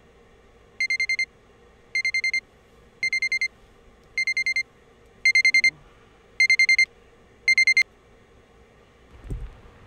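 Digital alarm clock beeping: seven bursts of about five quick, high beeps each, roughly one burst a second, then it stops. A low thump follows near the end.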